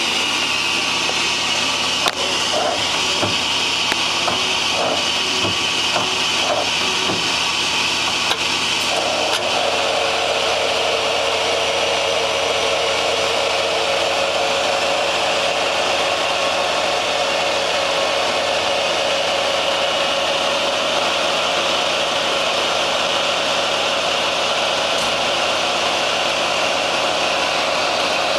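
Mazak SQT 250MY CNC turning center running under power, a steady machine whir. There are a few short clicks and knocks in the first several seconds, and a steady, higher tone joins about nine seconds in and holds.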